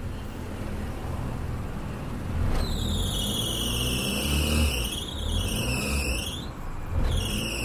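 Car engine running with its drive belt squealing in two high-pitched spells, about a second and a half in and again near the end, while the accelerator is pressed. The squeal wavers and dips in pitch. The owner puts it down to a rubber belt that has stretched and gone slack, slipping on its pulleys, worst when the engine is cold.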